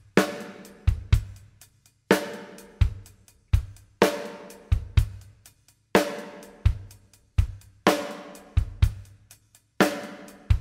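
Drum kit playing a steady beat on its own. A loud accented hit with a long ringing decay comes about every two seconds, with lighter kick-drum thuds and hi-hat ticks between.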